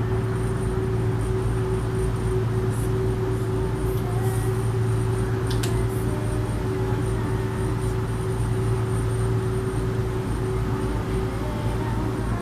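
Ferry engine droning steadily, heard on board: a low hum with a steady higher tone over it. A brief click about five and a half seconds in.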